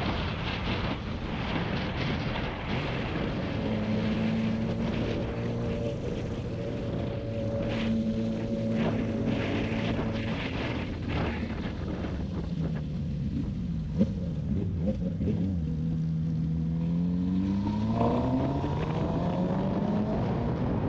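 Suzuki GSX-R sport bike's inline-four engine heard from the rider's position over wind rush, running steadily, then its revs dipping and climbing hard as the bike accelerates, with a gear change near the end. A single sharp click sounds midway.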